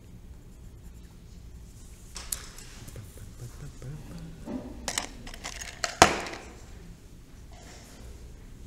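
Coloured pencils clicking and knocking as they are handled and set down on a desk, a few sharp clicks from about two seconds in, the sharpest about six seconds in.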